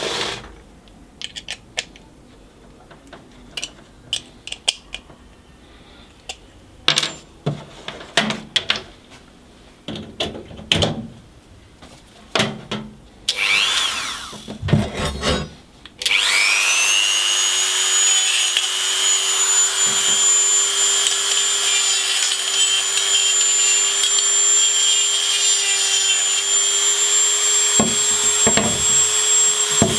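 Scattered clicks and knocks of tools and parts being handled, then about halfway a high-speed electric power tool spins up with a rising whine. It runs on steadily with a high whine over a hiss.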